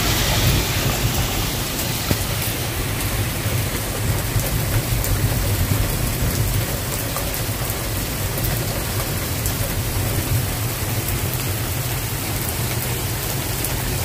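Heavy rain falling steadily: a dense, even hiss with many sharp little drop ticks close by, over a steady low rumble.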